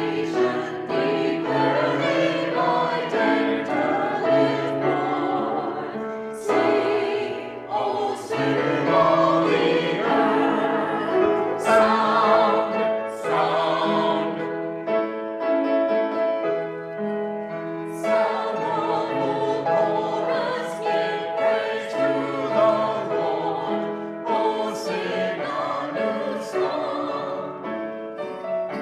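A full church choir singing in parts, holding chords with the consonants of the words cutting through. The singing grows louder in the middle and eases off toward the end.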